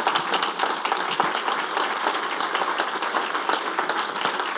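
Audience of many people applauding steadily, a dense crackle of overlapping hand claps.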